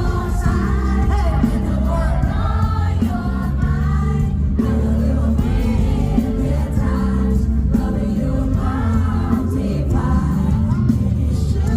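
A male pop singer sings live over a loud backing track with heavy bass, heard through a concert PA system.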